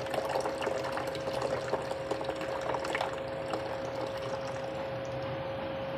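Tap water running in a thin stream from a faucet into a basin of soapy dishwater, a steady splashing trickle, with a faint steady tone beneath it.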